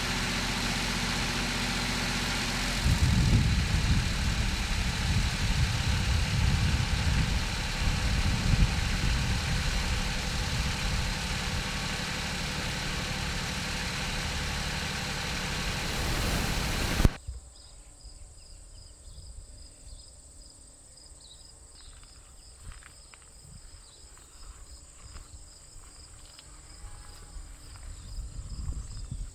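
An engine running at a steady idle, then louder and rougher from about three seconds in; it cuts off suddenly about seventeen seconds in, leaving insects chirping.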